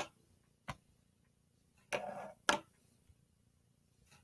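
A few short, sharp clicks and taps from Chromebook key presses capturing stop-motion frames and a small wooden paintbrush being nudged along the tabletop. One comes near the start, one about two-thirds of a second in, and a close pair around two seconds in.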